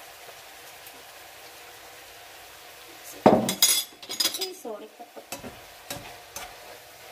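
Faint steady sizzle of food frying in oil in the pans. About three seconds in comes a loud clatter, then the irregular scrape and knock of a slotted spatula stirring spinach leaves in a nonstick frying pan.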